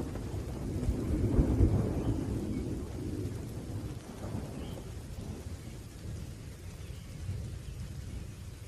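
Rolling thunder over steady rain: a low rumble swells about a second in, then slowly fades away.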